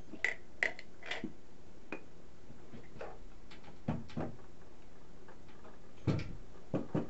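Conduit and its junction box being handled and fitted against a wooden ceiling: a few sharp clinks near the start, then scattered duller knocks and thumps about four seconds in and near the end.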